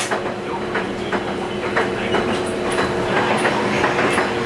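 Kagoshima City tram car running along the street, heard from inside: a steady hum with irregular clicks and clacks from the wheels on the rails.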